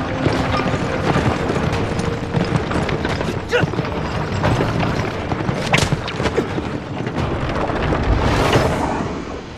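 Heavy rumbling action sound effects with several sharp crashing hits, building to a loud whooshing crash about eight seconds in, over a dramatic music score.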